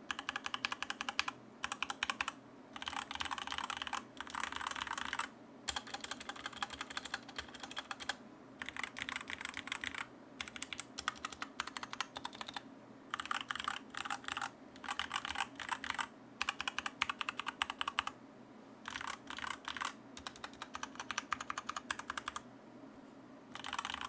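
Typing on a DIERYA DK63 60% mechanical keyboard with coated ABS keycaps: a dense clatter of key presses in runs of a second or few, broken by short pauses. The case has filling inside, and there is no audible spring ping.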